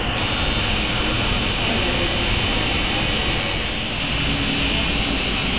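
Tattoo machine buzzing steadily while the needle works on skin.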